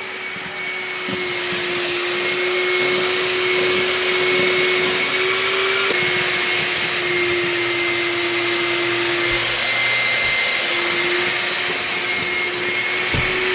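A vacuum cleaner running steadily, with a constant motor whine and rushing air.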